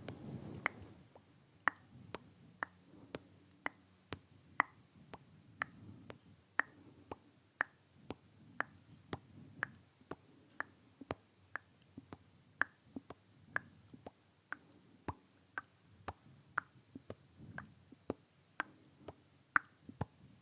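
Close-miked mouth pops: sharp, short lip-and-tongue pops, about one or two a second at uneven spacing.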